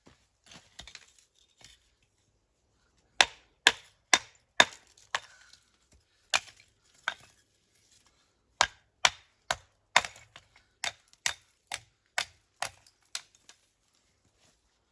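A hand tool striking building stone during dry-stone and mortar wall work, sharp knocks with a short ring. There are about nineteen blows in runs, roughly two a second, starting about three seconds in.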